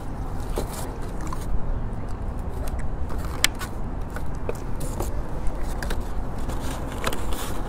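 Styrofoam takeout clamshell and the aluminium foil around a pita being handled: scattered short crinkles and clicks over a steady low rumble.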